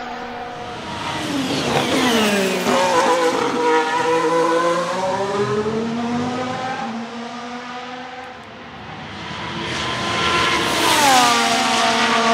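Ferrari F1-75 Formula 1 car's 1.6-litre turbocharged V6 hybrid engine passing at speed. The engine note drops sharply as a car goes by about two seconds in, rises again as it pulls away, and drops sharply once more at the loudest pass near the end.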